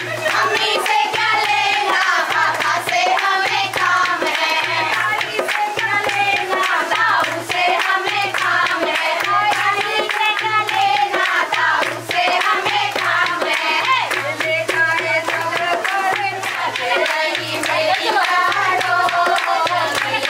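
A song playing: melodic singing over a steady beat that pulses about once a second, with sharp percussive hits throughout.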